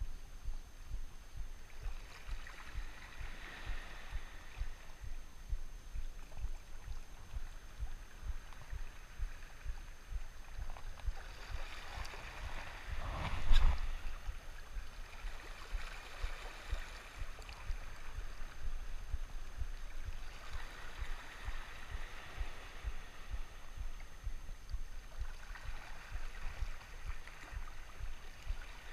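Small waves lapping and gurgling against a rocky shoreline, with stretches of hiss that come and go and one louder thump or splash about halfway through.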